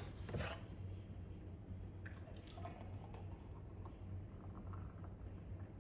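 Thick, creamy peanut punch being poured from a blender jug into a glass: faint wet dribbling with a few small clicks, over a steady low hum.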